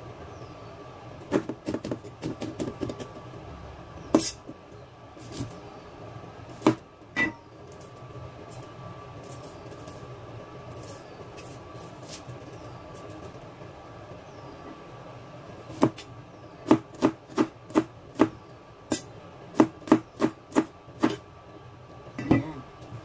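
Chinese cleaver chopping garlic cloves on a stainless steel cutting board: a few scattered knocks in the first seven seconds, then a quick run of about a dozen chops near the end.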